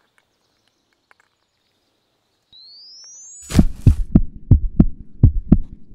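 Added suspense sound effects: a rising synthesized tone for about a second, then a sudden loud hit followed by a fast, low, thudding beat like a heartbeat, about three beats a second.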